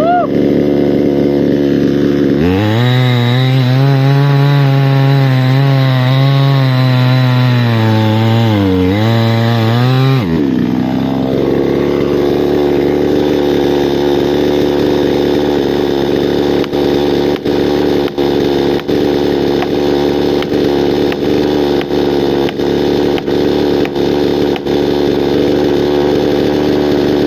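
Two-stroke chainsaw running throughout. From a couple of seconds in until about ten seconds in its pitch drops and wavers as it labours in a cut through wood, then it returns to a steady, higher running note, with brief dips in loudness near the end.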